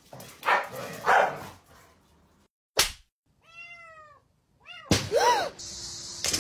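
Kitten meowing: one drawn-out mew that rises and falls, then a couple of shorter ones. Before it come scuffling noises and a single sharp thunk, and a steady whir starts near the end.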